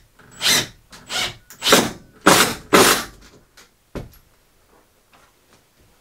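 Cordless drill driving a screw up through a timber stud into the ceiling in about five short bursts, the screw biting securely into a timber batten hidden behind the ceiling lining. A single sharp click about four seconds in.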